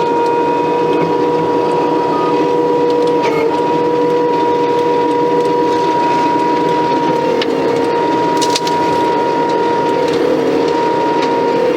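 Case TV450 skid steer with a stump grinder attachment, running steadily at working speed with a constant high whine, heard from inside the cab.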